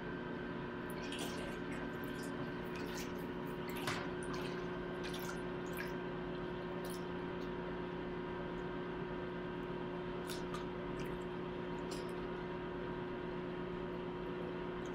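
Light splashes and drips of water in a plastic baby bathtub as hands wash an infant, a scatter of small splashes through the first several seconds and a few more later, over a steady hum.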